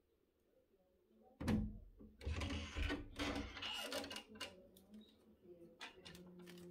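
A sudden knock about a second and a half in, then rattling and clattering as a wooden door is opened, followed by a string of light clicks.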